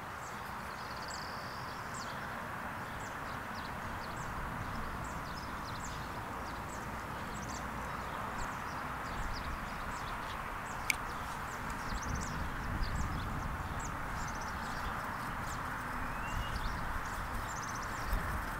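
Outdoor ambience: many small birds chirping in quick, scattered short notes over a steady background hiss, with a single sharp click about two-thirds of the way through and a few low bumps near the end.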